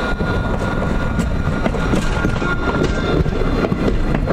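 Alstom Citadis 302 tram running past at close range: steel wheels rumbling on the rails with a steady high whine, and a few sharp clicks from the wheels on the track.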